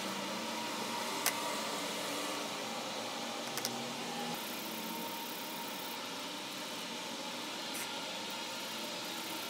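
Steady background hiss and hum, with a few light clicks of plastic being handled: one about a second in and a quick double click a few seconds later.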